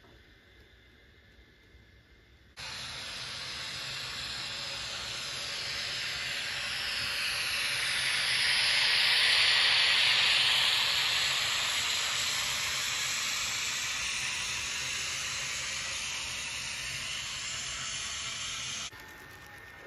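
Rushing noise of a passing train that starts abruptly, swells to a peak about halfway through and slowly fades, then cuts off suddenly near the end.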